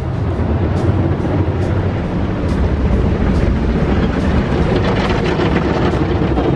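Automatic car wash working over the car, heard from inside the cabin: a loud, steady rush of water and coloured foam spray against the body and windows, with a deep rumble underneath.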